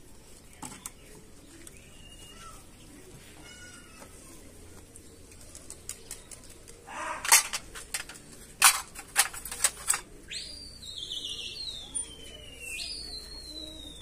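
Several sharp clinks and clatters of steel dishes and cups being handled, about halfway through. Then a high whistling tone that slides slowly down in pitch, jumps back up and slides down again.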